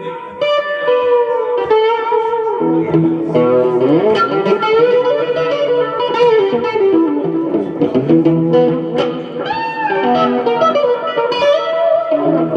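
Electric guitar playing a blues-style line, with many bent, sliding notes.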